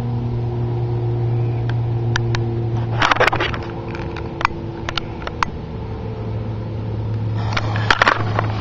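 Great Grizzly White Glory firework fountain sputtering: scattered sharp crackles and pops, with two dense flurries about three seconds in and near the end. Under it runs a steady low mechanical hum.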